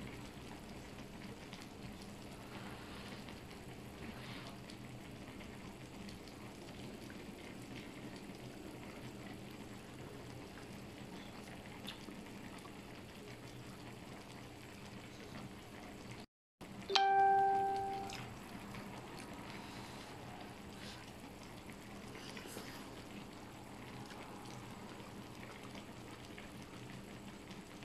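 Kimchi nabe hotpot simmering faintly and steadily, with small clicks of utensils. About 17 s in, after a short break in the sound, a single bell-like ding rings out and fades over about a second.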